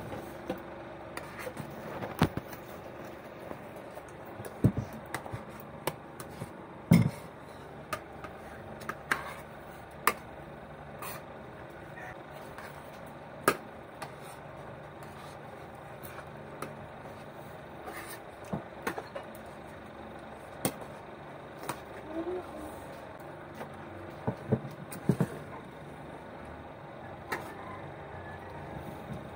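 Spoons clinking and scraping on plates as children eat: scattered, irregular sharp clicks and knocks over a steady low background noise.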